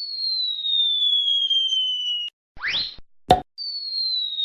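Electronic cartoon sound effects: a high, whistle-like tone gliding slowly downward for about two seconds, then a quick upward swoosh and a sharp click, after which the falling whistle tone starts again.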